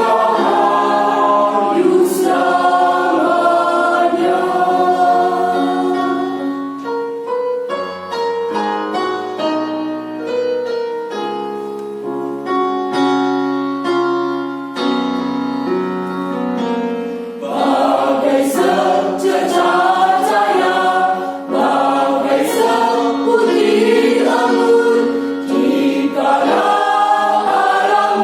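Choir singing in parts, with sustained notes. The sound thins and softens through the middle, then the full choir comes back in loudly about two-thirds of the way through.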